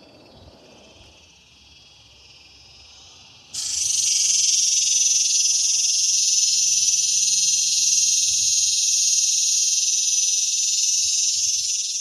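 Male cicada calling with its timbals: a steady, high, metallic buzz. It is faint at first, then about three and a half seconds in it becomes loud and holds without a break.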